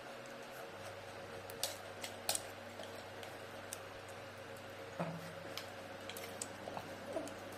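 Faint room tone with a steady low hum, broken by a few light, sharp clicks and taps, about three of them clear.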